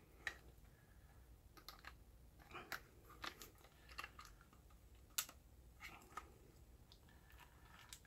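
Faint, scattered clicks and taps from a Master Lock 94DSPT combination trigger lock and a BB pistol being handled as the lock's two halves are fitted around the trigger guard. The sharpest click comes about five seconds in.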